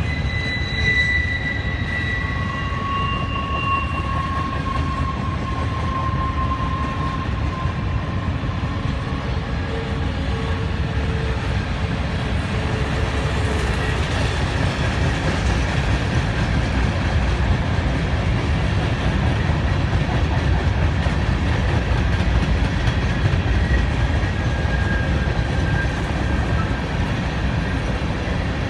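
Mixed freight train cars (flatcars, covered hoppers, boxcars, a tank car) rolling steadily past: a continuous rumble of wheels on rail. Several thin high squeals of wheel flanges sound in the first few seconds, and a faint one near the end.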